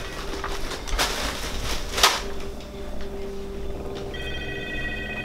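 A telephone ringing: a steady electronic ring of several high tones at once starts about four seconds in. Before it come two short bursts of noise, about a second apart.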